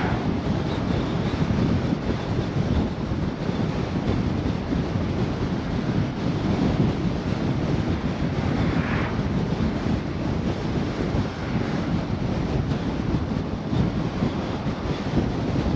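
Steady wind and tyre rumble of a car driving at road speed on a highway. An oncoming van swishes past right at the start, and a smaller swell about nine seconds in is likely another passing vehicle.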